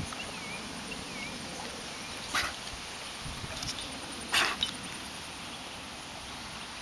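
A dog swimming in a pond, with two short noisy bursts about two and a half and four and a half seconds in over a steady hiss, and a few faint high squeaks early on.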